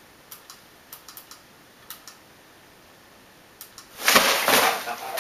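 A few scattered light clicks, then about four seconds in a loud rustling scrape as a package is swung up against the microphone.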